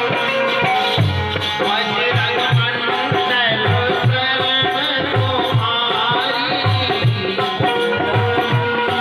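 Indian devotional folk music. A hand drum keeps a steady, quick beat with a rattling shaker, under a wavering melodic line.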